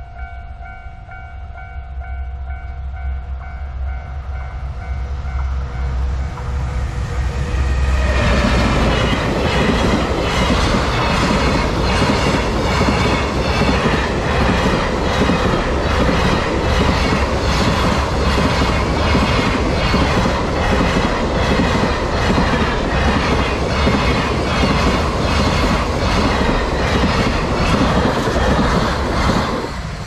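A JR Freight EF210 electric locomotive (EF210-146) hauling a container freight train approaches with a swelling rumble while the level crossing's warning bell rings. About eight seconds in, the train reaches the crossing. The container wagons then pass loudly, with a rapid, regular clatter of wheels over the rail joints that drowns out the bell.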